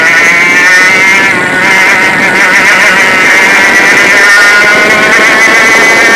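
Easykart's 100cc two-stroke kart engine running at high revs close to the microphone, its pitch climbing steadily as the kart accelerates down the straight.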